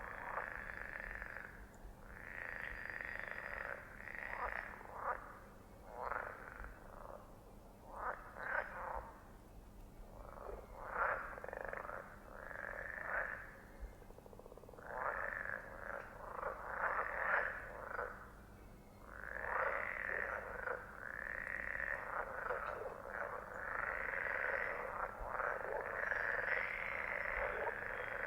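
Frogs croaking: short bouts of overlapping calls with brief pauses between them, which run together into a steady chorus about two-thirds of the way through.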